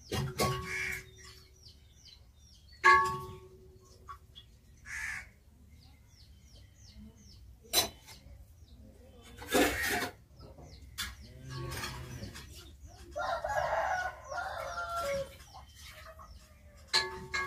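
Chickens clucking and a rooster crowing, with small birds chirping and a couple of sharp knocks.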